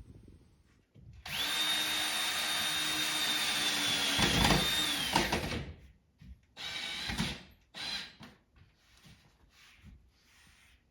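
Electric drill running in one burst of about four seconds, its whine holding steady and then dropping as it stops, followed by two short bursts.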